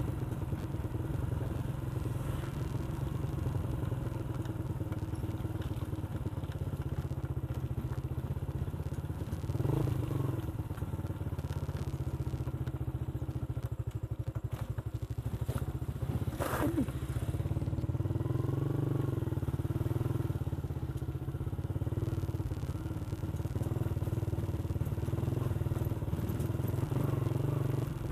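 Motorcycle engine running steadily while riding, with one brief sharp noise about two-thirds of the way through.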